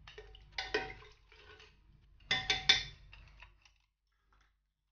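A metal spoon clinking against a metal pressure cooker while stirring mutton in water: a few clinks under a second in, then three quick ringing strikes about two and a half seconds in.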